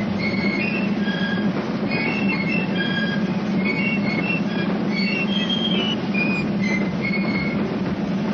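Basel Fasnacht piccolos playing a march tune in short high notes that step from pitch to pitch, over dense, continuous drumming.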